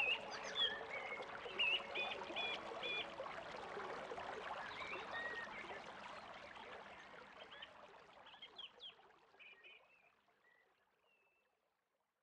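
Birds chirping in short repeated calls over a trickle of running water. Both fade out gradually over the last several seconds.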